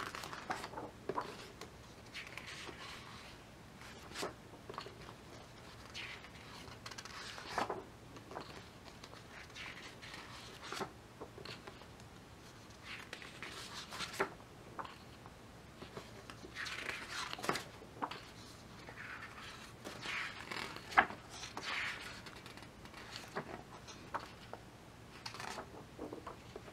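Heavy photobook's glossy pages being turned by hand: faint rustles and swishes of paper, with sharp little clicks and taps as the pages are handled, several times over.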